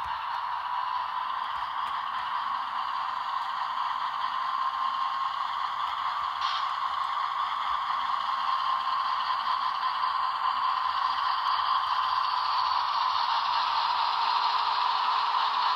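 Model diesel locomotive running along the track: its small electric motor and wheels give a steady whine and hiss that grows slightly louder near the end, with a faint tone rising in pitch late on.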